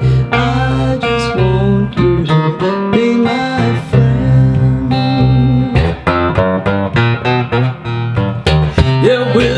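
Baritone electric guitar playing an instrumental blues passage: picked single notes, some bent in pitch, over a low repeating bass note.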